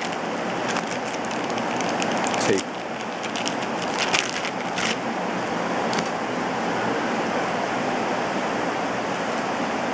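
Steady rain as background noise throughout. Over it, for the first half, the thin plastic bag around a camera neck strap crinkles in short bursts of crackling as it is pulled off, stopping about six seconds in.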